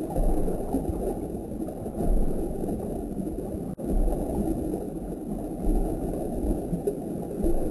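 Steady low gurgling rush of water circulating in a nano reef aquarium, with low thumps about every two seconds.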